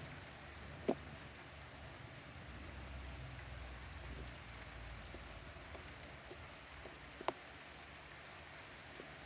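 Steady rain falling in a thunderstorm, with a low rumble of distant thunder swelling and fading in the middle. Two sharp drip ticks, about a second in and about seven seconds in, plus a few fainter ones.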